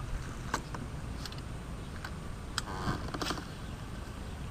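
A few light knocks and clicks over a steady low rumble, with a short scuffle about three seconds in.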